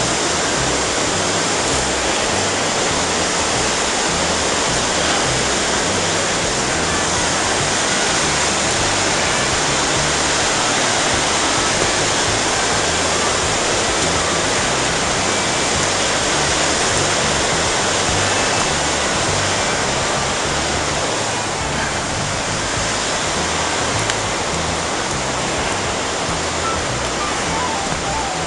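Steady rush of a waterfall and cascading creek water.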